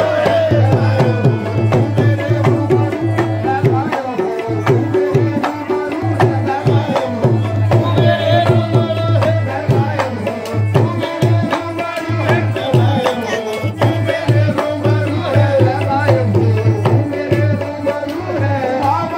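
Live qawwali music: a harmonium and a dholak drum keep a quick, even beat, with male voices singing along.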